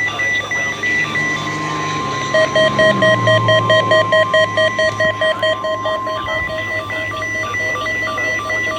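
NOAA Weather Radio 1050 Hz warning alarm tone, one steady tone starting about a second in, sounded as part of a Required Weekly Test of the warning system. Over it, weather alert receivers beep in rapid pulses at several pitches, about three a second, loudest from about two and a half seconds in.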